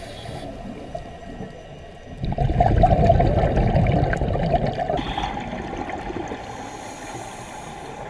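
Muffled underwater bubbling and rumbling from a scuba diver's regulator exhaust, heard through a camera housing: a surge of exhaled bubbles begins about two seconds in and fades away over the next few seconds.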